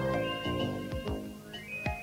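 Background music of sustained electronic tones with soft strikes and a rising pitch glide near the end.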